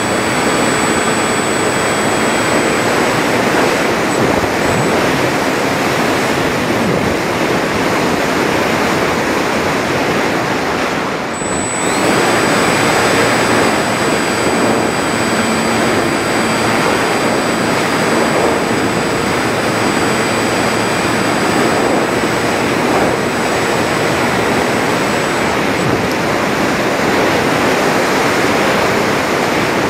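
Wind rushing over the onboard camera of a Volantex Phoenix 1600 electric RC glider, with the high whine of its electric motor and spinning propeller. The whine drops out briefly about a third of the way in, comes back rising slightly, and stops near the end, leaving only the wind rush as the glider flies unpowered.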